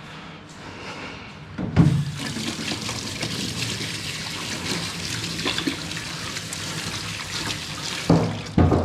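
Tap water running into a stainless steel sink while hands are washed under the stream, a steady rush that starts with a thump about two seconds in and ends with two more thumps near the end.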